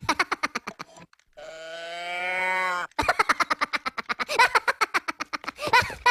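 Edited cartoon sound effects: a rapid stutter of pulses about ten a second, then a drawn-out, moo-like animal call with a rich pitched tone about a second and a half long, then several seconds of fast, chopped, voice-like pulsing.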